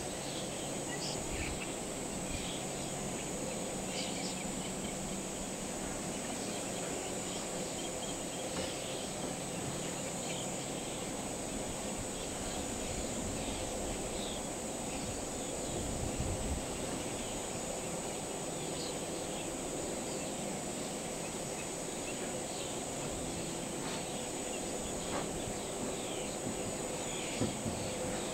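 Wetland ambience: a steady high insect hum, with many short, faint bird chirps scattered through it over a low, even background noise.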